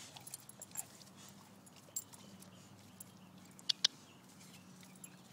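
A black Labrador moving about at a chain-link gate: scattered light clicks and scrapes, with two sharp clicks in quick succession a little past halfway, over a faint steady hum.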